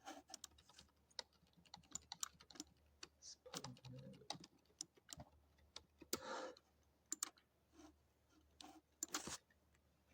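Irregular light clicks and taps of hands handling small plastic microphone-kit parts and packaging, with a few short rustles.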